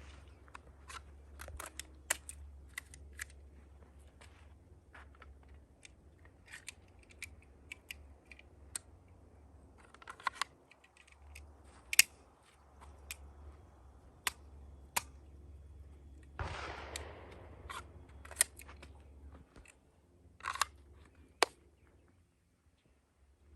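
Scattered sharp clicks and cracks on a shooting range, a few standing out much louder than the rest, about 12 and 21 seconds in, like handgun shots, with smaller handling clicks between them. A brief rush of noise comes about 16 seconds in.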